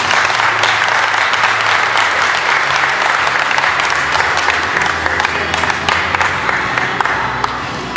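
Steady applause from an audience, with music playing underneath.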